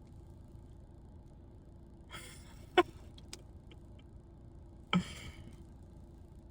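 A man breathing out sharply twice in astonishment, about two and five seconds in, with a small click after the first breath, over a faint steady room hum.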